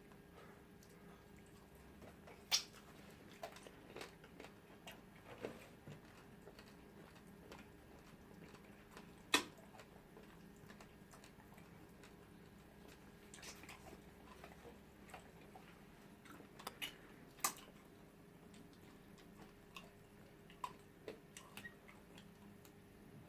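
Close-miked eating sounds of people eating pounded yam and eba with soup: soft chewing and mouth sounds broken by scattered sharp clicks, the loudest about two and a half, nine and seventeen seconds in, over a faint steady hum.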